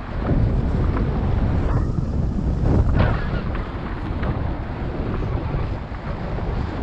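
Wind buffeting the microphone: a gusty rush, heaviest in the low end, swelling and easing from moment to moment.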